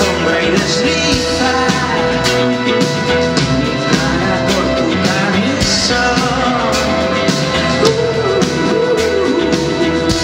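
Live rock band playing: a singer's vocals over electric guitar, bass guitar and a drum kit keeping a steady beat.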